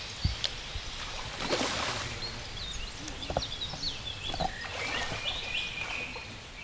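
Short high chirping calls from small animals, several in quick succession in the second half, with a brief rush of noise about a second and a half in and a few light knocks.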